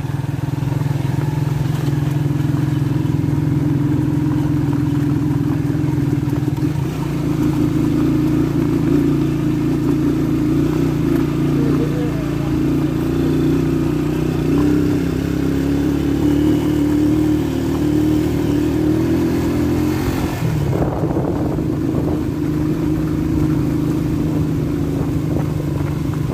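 Motorcycle engine running steadily under way, heard from on board the moving bike. Its note briefly changes about twenty seconds in.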